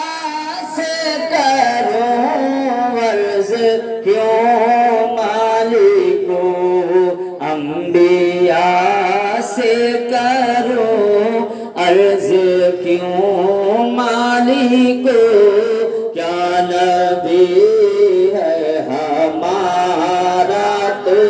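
A man singing a naat into a microphone, without instruments: long held notes that waver in pitch, with short breaths between phrases.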